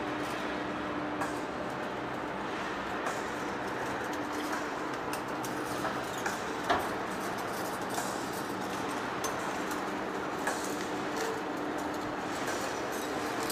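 Giant metal lathe running in a heavy machine shop: a steady mechanical din with a faint low hum, scattered light clicks and a sharper knock about halfway through.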